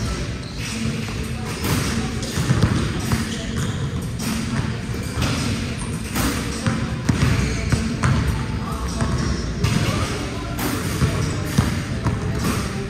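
Basketballs bouncing on an indoor court floor, with a voice in the background.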